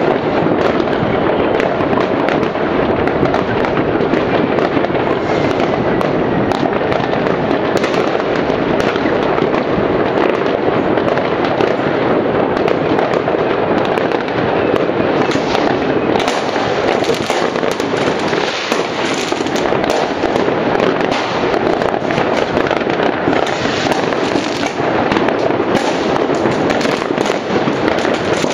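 Many New Year's fireworks and firecrackers going off across a town at once: a continuous, dense crackle of countless overlapping bangs and pops, steady in loudness throughout.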